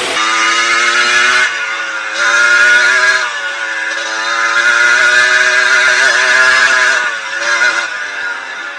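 Yamaha DT125's two-stroke single-cylinder engine revving up and down under riding load, with two louder, higher-pitched pulls that ease off near the end.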